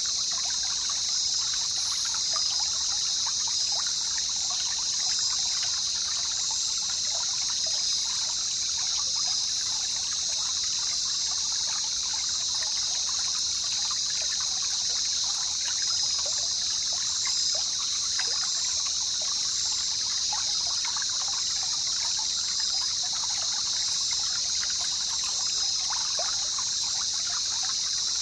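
Jungle river ambience: water trickling and babbling steadily, under a constant high-pitched hiss.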